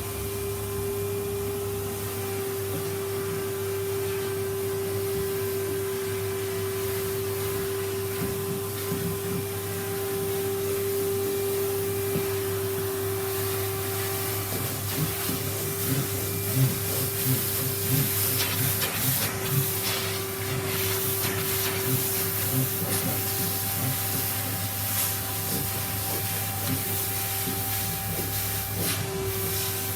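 Electric sander running steadily on a table top, a constant motor whine over a hiss, with irregular scraping and knocks midway as it is worked over the surface.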